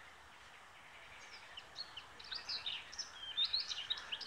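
A songbird singing a quick, varied song of high chirps and short whistles. It starts about a second in and grows louder toward the end, over a faint steady outdoor hiss.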